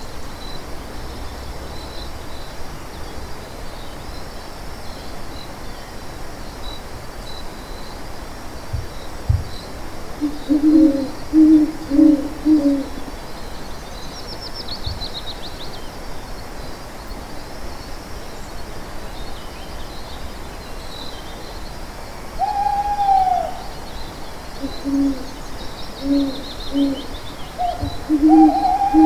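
Owl hooting: a run of four or five low, evenly spaced hoots about a third of the way in, and more runs near the end. A higher call that rises and falls comes twice in the last third, over a steady background hiss.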